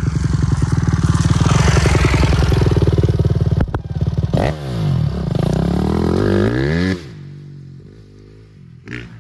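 Honda CRF250R four-stroke single-cylinder dirt bike engine revving hard up close, then pulling away with the revs rising and falling repeatedly. The sound drops off sharply about seven seconds in as the bike gets far away.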